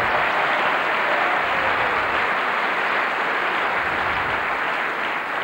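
Audience applauding, a steady dense patter of many hands that eases slightly near the end.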